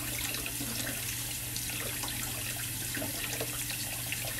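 Water running steadily from a bathroom tap into a sink, with small irregular splashes, over a steady low hum.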